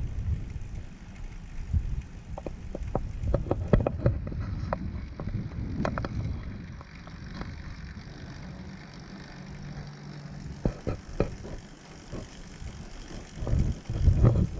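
A recumbent bike rolling along a trail: wind on the microphone at first, then scattered clicks and rattles from the ride and a faint steady low hum.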